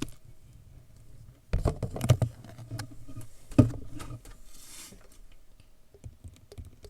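Clear glue and slime activator being stirred in a bowl as it thickens into slime: irregular knocks and clicks of the stirring utensil against the bowl, thickest in the first half, then a brief hiss and a few faint ticks.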